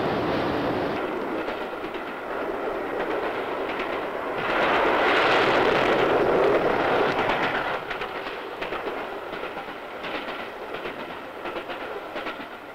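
Steam-hauled express train running at speed, its wheels clicking over the rail joints; the noise swells for a few seconds in the middle and then eases off.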